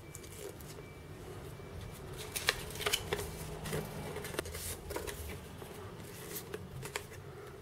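Faint rustling and handling of paper leaflets and a thin cardboard box insert, with scattered small taps and clicks, most of them a couple of seconds in.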